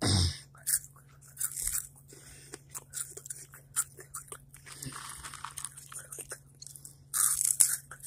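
Crisp, irregular crunching and chewing of hot rolled tortilla chips close to the microphone, with a louder knock right at the start and a burst of heavier crunches about seven seconds in.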